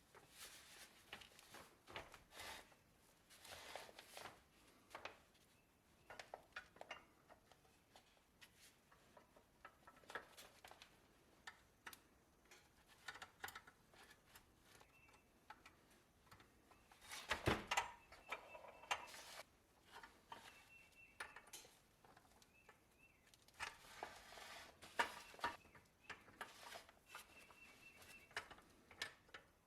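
Faint, scattered clicks, taps and scrapes of small hard objects being handled, with a louder flurry a little past the middle and another near the end.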